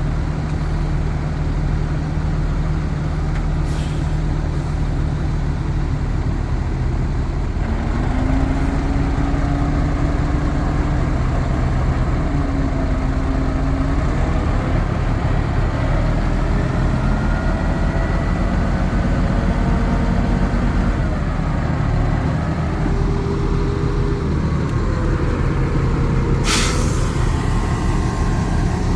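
Heavy diesel earthmoving machinery running steadily. From about a quarter of the way in, squealing tones slide up and down in pitch over it, and a short sharp hiss comes near the end.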